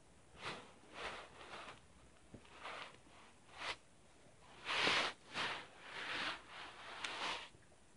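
Stomach gurgling: an irregular string of short, squishy rushes of noise, about ten of them, the loudest and longest about five seconds in.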